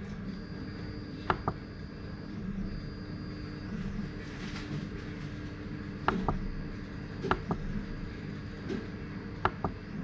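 Sharp clicks in pairs, four times, from the push switch of a rotary encoder being pressed and turned to step through an irrigation controller's LCD settings menu, over a low steady hum.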